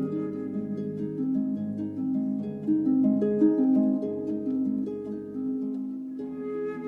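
Instrumental background music: a plucked-string melody, note after note.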